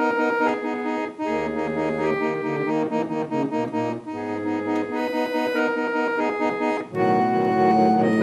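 Deutschmann physharmonica, a Viennese free-reed keyboard harmonium, playing held chords and a moving melody. The sound grows louder and fuller about seven seconds in, the dynamic swell that this later design of the instrument allows.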